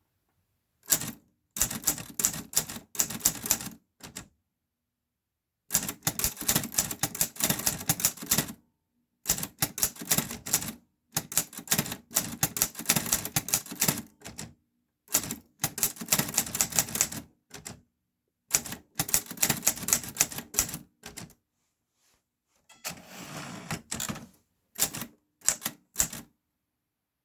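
Clover New Star 10S two-set Hangul typewriter being typed on: quick runs of key strikes a few seconds long, broken by short pauses. About two-thirds of the way through comes a softer, longer rasping sound.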